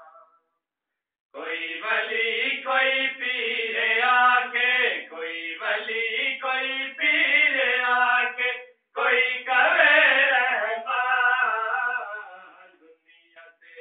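A man's voice chanting an unaccompanied devotional recitation in long, held melodic phrases. It starts about a second in, breaks briefly about nine seconds in, and trails off near the end.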